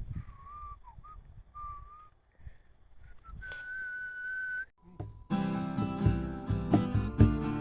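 A few thin whistled notes, the last held steady for about a second. About five seconds in, an acoustic guitar starts strumming chords, louder than the whistling.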